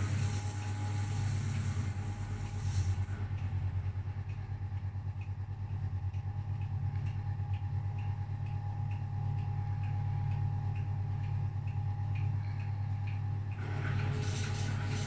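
1968 Scharpf Elektronica 2920 washing machine running a 95 °C boil wash. Its motor hums steadily under a light rattling tick about twice a second, the rattle its restorer puts down to the magnetic clutch's counterweight freewheel. A hiss over the first few seconds and again near the end.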